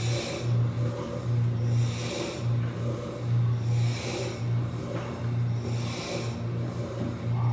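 Steady low machine hum with a breathy hiss that comes and goes about every second or two, from the working animated woodshop display of figures at belt-driven machines.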